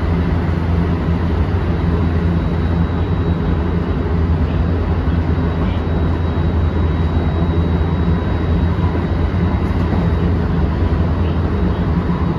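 Running noise inside a JR West 223 series 2000 electric multiple-unit motor car (MoHa 222) travelling at speed: a steady, loud rumble of wheels on rail.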